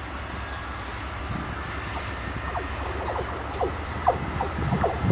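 GE C36-7i diesel locomotives' engines running as the pair pulls away and approaches, a steady low rumble that slowly grows louder. Short squeaks come over it in the second half.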